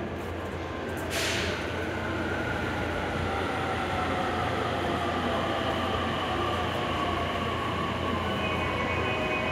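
Electric commuter train running through a station: a short sharp hiss about a second in, then a steady rumble with a whine that slowly slides down in pitch, and high steady tones joining near the end.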